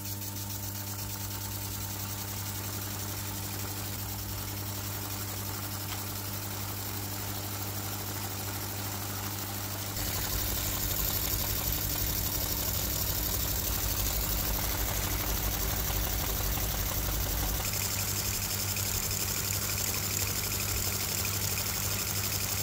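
Laser-cut wooden strandbeest model running under power: its small engine and wooden gear train turn the legs with a steady, even mechanical hum. It gets louder and busier about ten seconds in.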